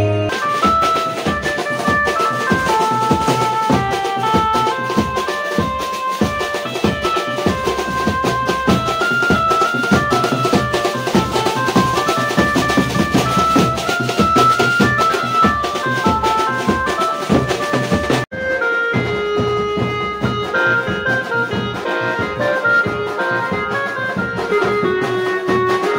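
Music with a steady drum beat under a quick-moving melody. About two-thirds of the way through it cuts off sharply for an instant and resumes with a different, duller passage.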